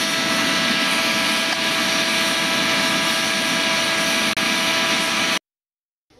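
Electric blower forcing air into a charcoal fire: a steady rushing roar with a whine. It cuts off suddenly about five seconds in.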